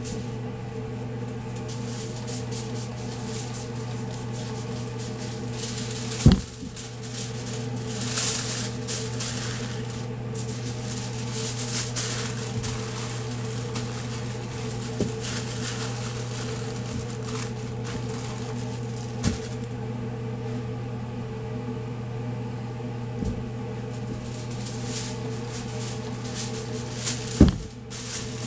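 Aluminium foil crinkling and rustling as a brisket is wrapped in it by hand, over a steady electrical hum from kitchen equipment. Two sharp thumps stand out, one about six seconds in and one near the end.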